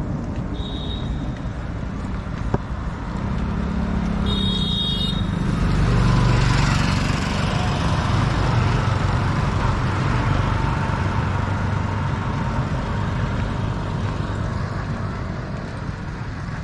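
Road traffic on a bridge: a steady hum of passing vehicles, swelling as a three-wheeled auto-rickshaw's engine passes close by around the middle. Two short high-pitched tones sound in the first five seconds.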